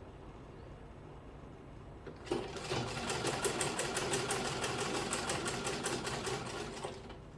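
Sewing machine stitching in a fast, even rhythm. It starts about two seconds in and stops shortly before the end.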